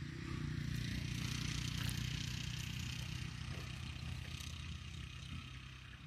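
A motor vehicle's engine running steadily with a low hum, loudest about a second or two in and slowly fading away.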